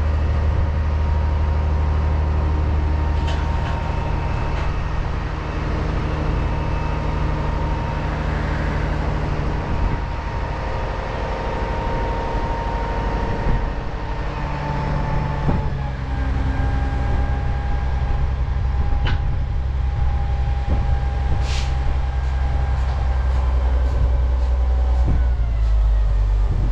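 Dump truck engine running steadily with a low drone and a thin whine above it; the whine steps down in pitch about halfway through and slides lower near the end. A short hiss comes a little over twenty seconds in.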